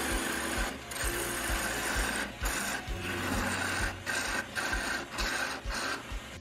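Parting tool cutting a groove into a spinning poplar blank on a wood lathe: a steady rasping scrape over the lathe's low hum, broken by several brief gaps.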